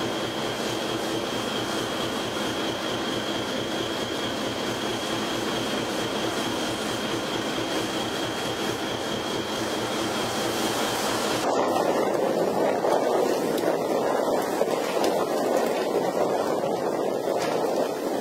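Fishing vessel under way: a steady drone of engine and rushing water with a faint high whine. About eleven seconds in it changes abruptly to a louder rushing noise.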